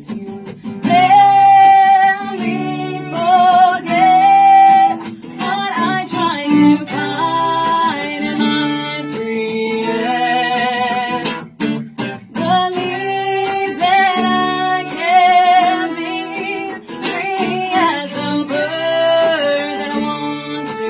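Live acoustic music without sung words. An acoustic guitar strums chords under a melody of long, held notes with a wavering vibrato.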